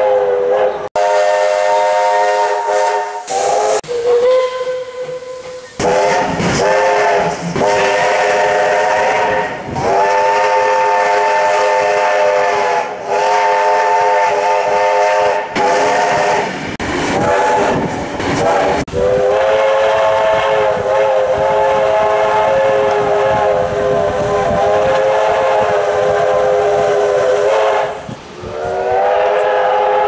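Victorian Railways short-bell five-chime steam locomotive whistle blowing a series of blasts, several notes sounding together as one chord, with a hiss of steam. About two-thirds of the way through comes one long blast of some nine seconds, followed by a final blast near the end.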